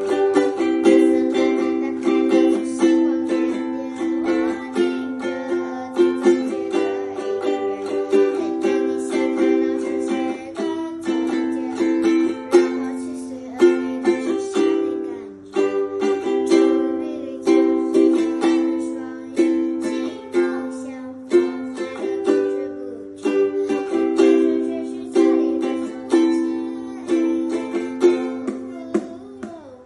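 A ukulele strummed and picked in a steady rhythm, its chords ringing in a small room.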